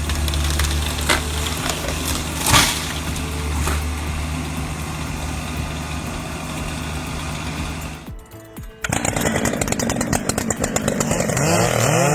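An excavator's diesel engine runs steadily, with a few sharp cracks in the first three seconds. After a brief drop about eight seconds in, a chainsaw runs, its pitch rising and falling as it revs near the end.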